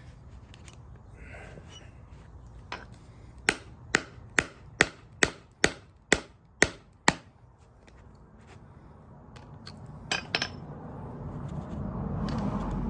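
Hammer blows on the stamped metal centre of a 1972 Ford LTD window crank, beating it to break the lip that holds the knob. There is a run of about nine sharp strikes at roughly two a second a few seconds in, a couple more near the end, and then a swelling rustling noise.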